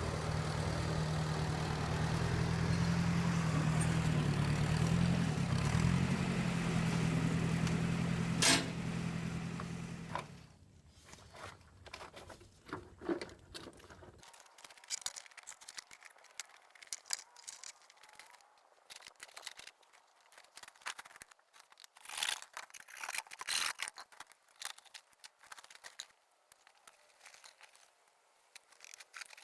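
Ford tractor engine running steadily, with one sharp click partway through, then stopping about a third of the way in. After it, scattered scrapes, clicks and crinkling from handling work.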